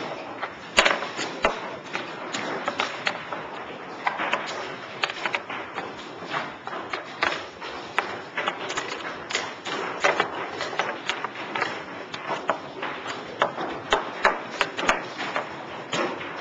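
Chess pieces clacking quickly on a board as they are moved and then set back up in rows, a run of sharp irregular clicks with the loudest about a second in.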